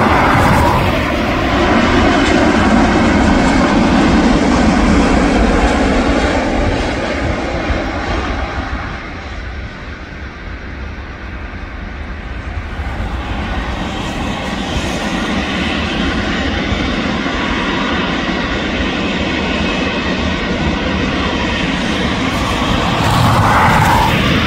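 Airliner engines running loud and steady. The sound dips about nine seconds in and swells again, with a rising whine near the end.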